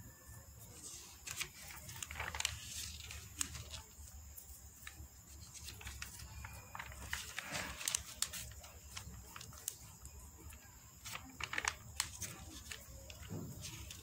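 Glossy paper catalogue pages being handled and turned: a faint rustle with scattered light crackles and taps.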